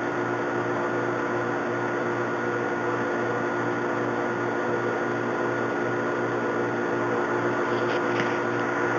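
Metal lathe running steadily, a steady hum from its motor and drive, while a profiling tool single-point bores the bolt-nose recess in a Remington 700 action.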